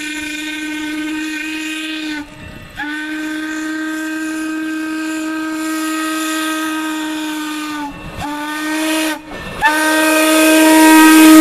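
Norfolk & Western No. 475, a 4-8-0 steam locomotive, blowing its steam whistle in the long, long, short, long pattern of a grade-crossing signal: one blast ends about two seconds in, then a long blast, a short one, and a final long blast that grows louder as the engine comes close, with steam hiss rising near the end.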